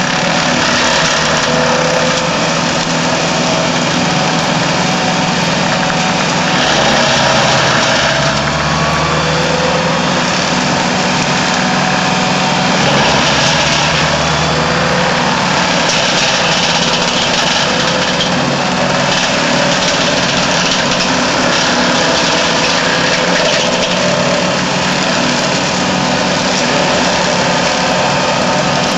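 Tractor engine running steadily under load while a TFVJ INDO forestry mulcher's swinging forged-steel hammer rotor shreds pine branches and brush. The shredding noise grows louder now and then as the rotor bites into thicker material.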